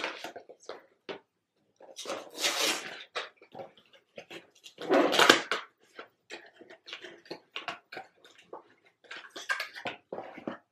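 Cardboard box being opened and its paper insert and wrapper handled: a run of irregular rustles and crinkles, loudest about two and five seconds in.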